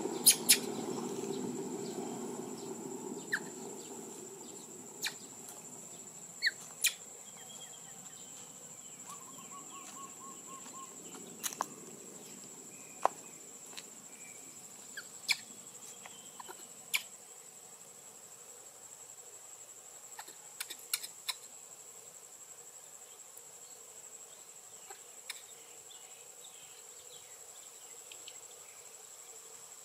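Steady high-pitched drone of insects chirring in the grass, broken by scattered sharp clicks and snaps a few seconds apart. A low rumble underneath fades away over the first few seconds.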